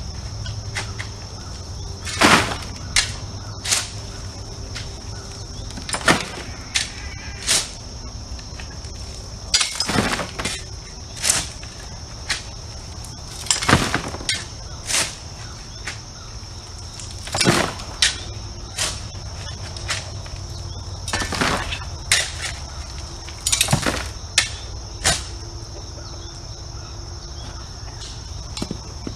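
Crunching, scraping strokes of a hand tool in loose gravel, one every second or two at an uneven pace, as driveway ruts are filled in by hand. A steady high insect chirring runs underneath.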